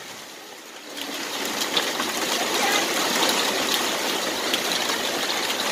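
Rain falling and water pouring off a roof edge, splashing onto the ground and onto people standing beneath it: a steady hiss of water that grows louder about a second in.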